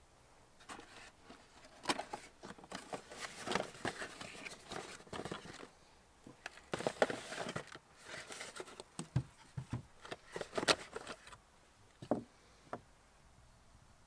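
Cardboard box being opened and unpacked by hand: irregular rustling, scraping and clicks of the card and of the plastic nozzles and hose inside, followed by two light knocks near the end.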